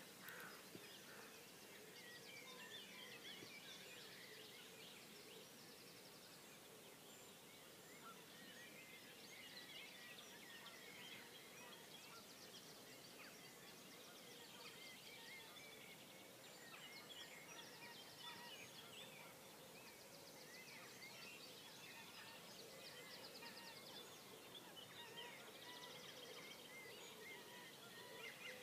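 Faint dawn chorus of many birds singing at once: overlapping chirps and whistles, with a rapid trill of repeated high notes breaking in several times.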